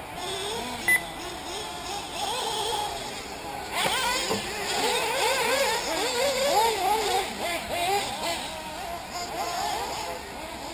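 Several 1/8-scale nitro RC buggies' small two-stroke glow engines revving up and down as they race, many pitches rising and falling over one another, louder from about four seconds in. A short, sharp beep about a second in.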